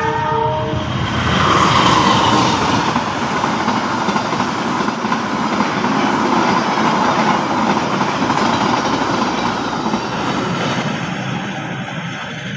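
A train passing on the track: a steady, loud rush of wheel and engine noise that peaks about two seconds in and slowly fades toward the end. A horn note breaks off within the first second.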